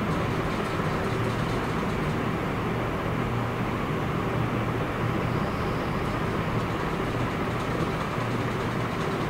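Steady low hum under an even rushing noise.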